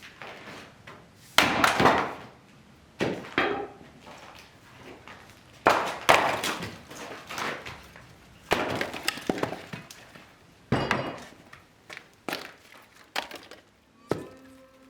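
A series of clattering crashes, hard objects dropped or thrown down one after another at irregular intervals, some with a brittle clink.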